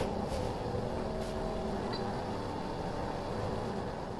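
A small electric motor running steadily: an even hum with a rush of air, like a hand-held blower.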